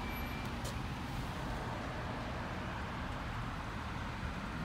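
Steady background noise, an even hiss and low rumble, with a faint click about half a second in.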